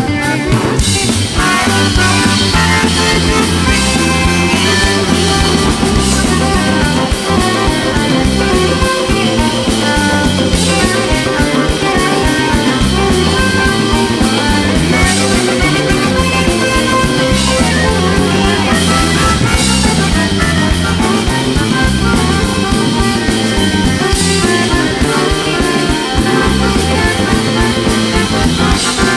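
Live rock band playing an instrumental passage with no singing: drum kit, electric bass and electric guitar, with a bayan (button accordion) lead.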